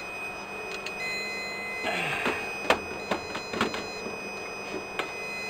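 Riello DVD 2200 UPS beeping: three beeps about a second long, one every two seconds, over a faint steady whine. Scattered clicks and knocks of the unit being handled fall between the beeps.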